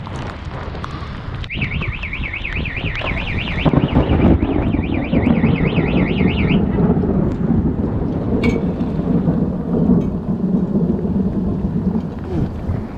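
Heavy squall rain and wind beating on the microphone. A warbling electronic alarm rises and falls about four times a second, starting a second or two in and stopping about halfway through.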